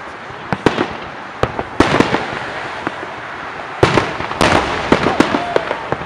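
Aerial fireworks shells bursting: a run of sharp bangs, a few in the first two seconds, then coming thicker and louder from about four seconds in.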